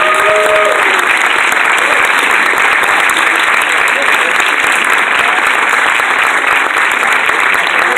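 Audience applauding steadily, with a single voice calling out briefly in the first second.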